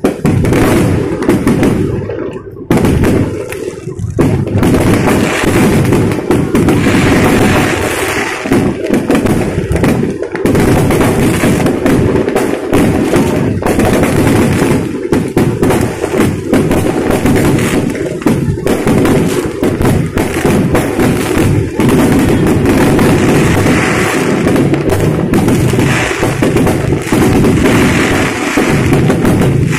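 Fireworks display: aerial shells bursting in rapid, near-continuous loud bangs and crackles.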